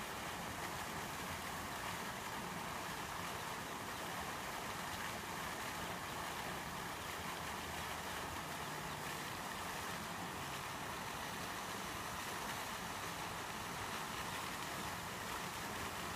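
Steady outdoor background noise: an even hiss with a faint low hum underneath, unchanging throughout, with no clear duckling peeps or quacks standing out.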